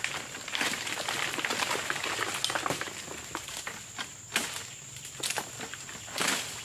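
Stainless steel egrek pole sickle hooking and cutting dry, hanging oil palm fronds: a continuous crackling and rustling of dry leaves, with a few sharper cracks in the second half.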